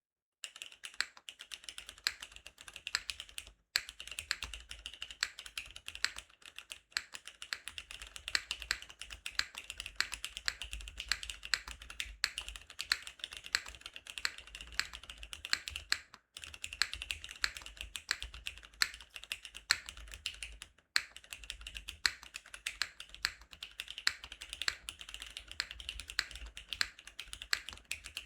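Continuous fast typing on a Greystudio Leaf65 custom mechanical keyboard with Cherry HyperGlide Black linear switches, GMK Klassiker keycaps, a skeleton aluminium plate and no foam: a dense run of keystroke clacks, broken by a few brief pauses.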